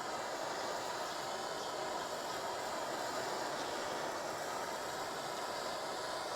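Gas blowtorch flame hissing steadily, heating a heater core to melt out old solder.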